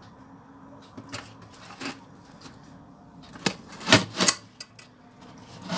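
Light taps and clinks of whole gilt-head bream and hands against a perforated stainless steel colander as the fish are shifted and laid belly-down to drain. There are several separate knocks, with the loudest few about four seconds in.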